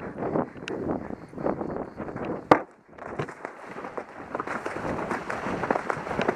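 Hoofbeats of a horse galloping on a dirt cross-country course, a dull thud about every half second, with wind buffeting the helmet-mounted microphone. A sharp knock sounds about two and a half seconds in, followed by a brief lull.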